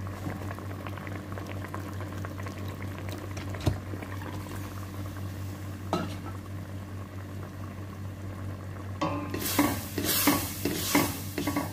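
Chicken and molokhia stew simmering in a stainless steel pot, then from about nine seconds in a wooden spoon stirring it, with loud irregular scrapes against the pot.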